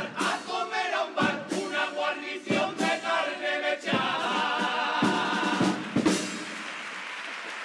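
Murga chorus of men singing together in harmony, punctuated by sharp percussion strikes, ending the song on a long held chord with a last strike about six seconds in; the audience then applauds.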